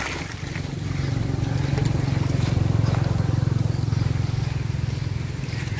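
A small engine running with a low, fast chugging drone that grows louder over the first couple of seconds and then eases off a little.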